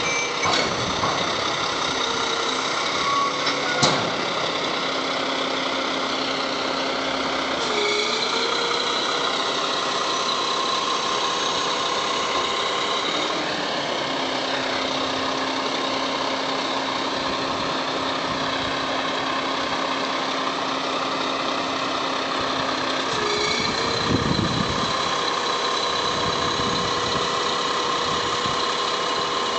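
Roll-off container truck's diesel engine idling steadily while its tarping arm swings a tarp over the loaded container. The engine note shifts in pitch near 8 s and again near 24 s, and a single sharp clank sounds about four seconds in.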